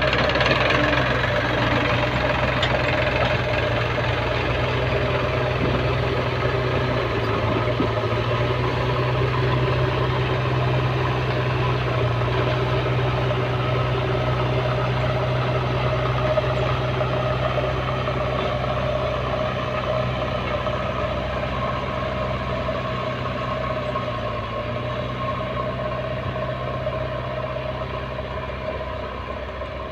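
Tractor diesel engine running steadily under load while pulling a disc plough through dry soil, slowly fading over the last several seconds as it moves away.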